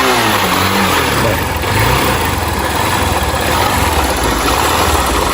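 Motorcycle engine being revved, its pitch dropping back as the throttle closes near the start, then running steadily at idle.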